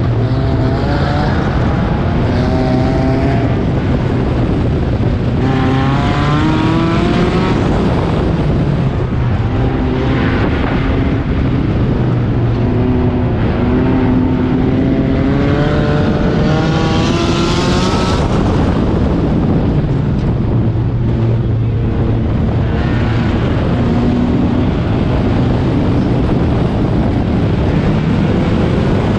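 A four-cylinder race car engine heard from on board, revving up and dropping back several times as the car accelerates and lifts, over steady wind and road noise.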